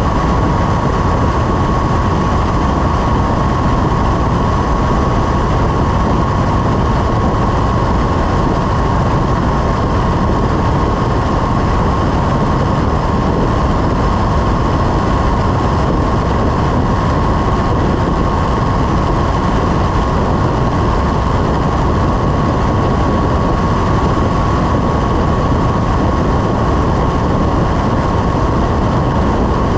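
Small aircraft's engine and propeller running steadily, heard from on board as a loud, even drone with one constant high whine over it.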